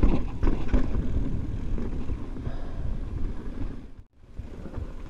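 Mountain bike rolling fast over a dirt singletrack: rumble of the tyres on the trail and rattles and knocks from the bike over bumps, with wind on the microphone. The sound drops out briefly about four seconds in.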